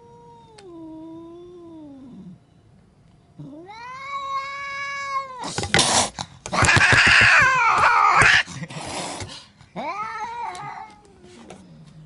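An angry domestic cat caterwauling: two long, wavering yowls, then a loud harsh hissing screech with a rapid series of knocks as it lunges, the loudest part, then a shorter yowl near the end.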